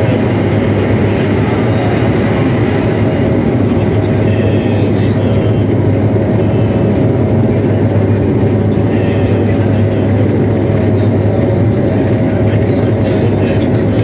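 Bombardier Q400's Pratt & Whitney PW150A turboprops and six-blade propellers heard inside the passenger cabin, a loud steady low drone with a constant hum, on descent with the landing gear lowered.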